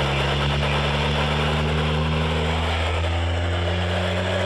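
Radio receiver playing static hiss over a steady low buzzing hum.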